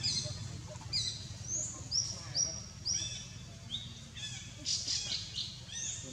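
Birds chirping: a run of short, high chirps about two a second, crowding together near the end.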